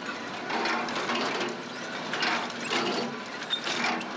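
Jean Tinguely's motorised scrap-metal kinetic sculptures running: wheels, gears and linkages clattering and ratcheting in uneven, repeated bursts.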